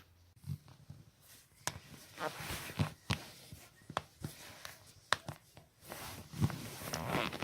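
A person cracking their joints: a series of sharp pops, about eight, irregularly spaced, with soft rustling of movement between them.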